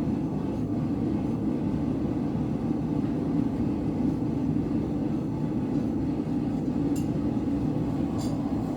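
Blacksmith's forge running with a steady, low roar while a piece of steel heats in it, with a couple of faint clicks near the end.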